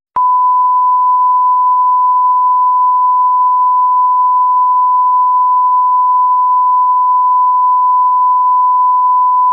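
A test-tone beep of the kind that goes with TV colour bars: one loud, unbroken tone held at a single pitch, coming in a moment after a brief silence. It stands in for a section removed from the video.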